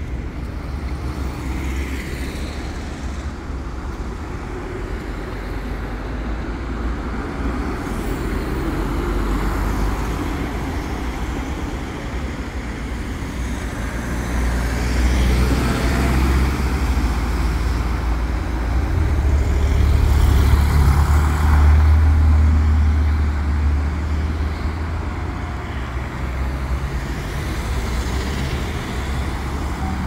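Road traffic: cars, vans and trucks driving past close by, a steady rumble that swells as the heavier vehicles pass, loudest about two-thirds of the way through.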